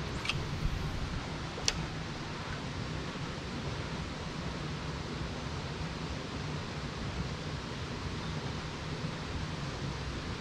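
Steady rushing of river water, an even hiss with no change in level, with two sharp clicks about a quarter of a second and a second and a half in.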